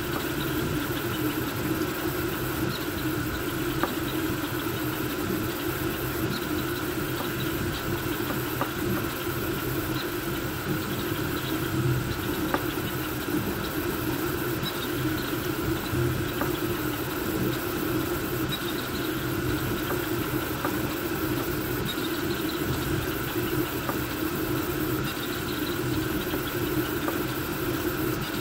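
Voron V2.4 3D printer printing at speed: a steady whir of its cooling fans, with the stepper motors humming as the toolhead moves back and forth, and faint scattered ticks.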